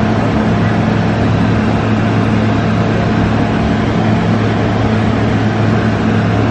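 Steady low hum with an even hiss over it, unchanging and with no distinct events.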